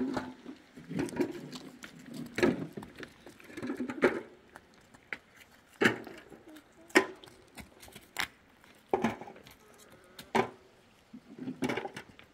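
A series of sharp knocks, roughly one a second and uneven in strength, like stones knocking together as they are handled and set down.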